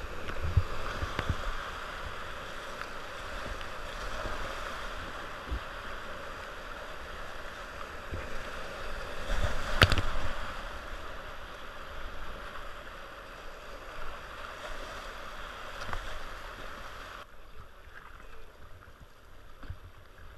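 Whitewater rapids rushing steadily around a kayak, with low thumps and a sharp splash of water hitting the camera about halfway through. Near the end the rush cuts off abruptly to the quieter lapping of calm water.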